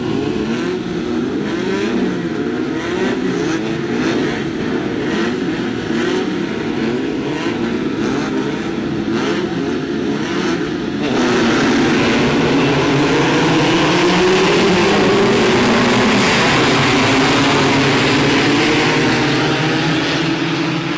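A grid of Class 9 off-road buggies with air-cooled 1600 cc Volkswagen engines revving together at the start line, several engine pitches rising and falling. About eleven seconds in the pack launches at full throttle and the sound turns louder and steadier as they accelerate.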